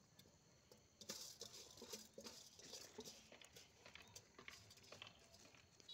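Faint, irregular small taps and scratches of fingers working over a stainless-steel bowl, starting about a second in.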